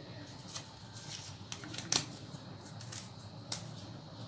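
A folded sheet of paper being creased and unfolded by hand: scattered short crackles and clicks of paper, the sharpest about two seconds in.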